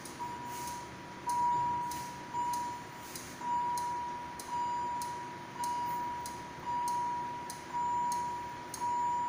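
A steady high electronic tone from ward medical equipment, swelling about once a second like an alarm, with faint quick ticks over it.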